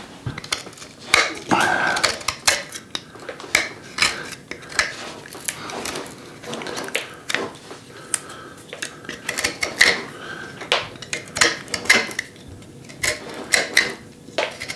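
Scoop carving blade cutting into a diamond willow stick, a run of short, irregular scraping cuts and clicks as the bark and soft wood are scooped out of a diamond.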